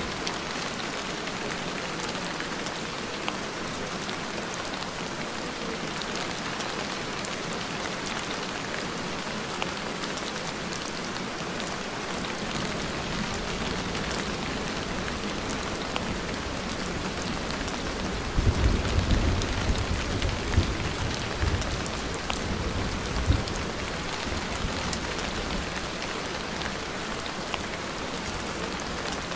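Steady rain falling, an even hiss with many scattered drop ticks. A louder low rumble swells and fades over several seconds about two-thirds of the way through.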